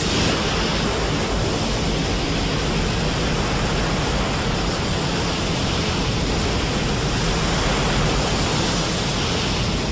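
A film sound effect: a loud, steady rushing noise with a deep rumble, holding even throughout.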